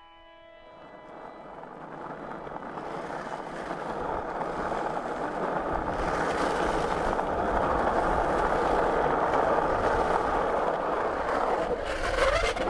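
Skateboard wheels rolling on asphalt: a steady rolling noise that fades in over the first few seconds and then holds.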